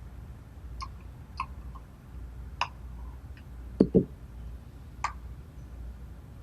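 Small parts and tools being handled on a workbench: a few scattered light clicks and taps, with two louder knocks in quick succession about four seconds in.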